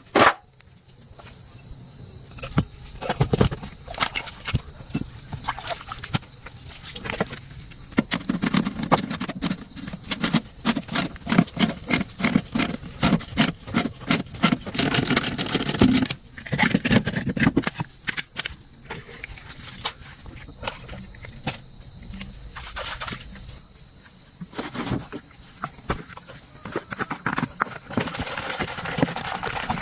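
Rapid, irregular knocking and tapping, thickest and heaviest from about 8 to 17 seconds in, over a faint steady high-pitched tone.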